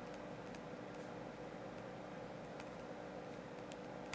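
Faint, scattered light clicks over a steady low electrical hum.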